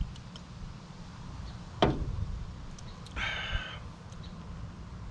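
Aluminium can set down on a glass tabletop with one sharp knock about two seconds in, after a sip. A brief high-pitched tone follows about a second later over a steady low rumble.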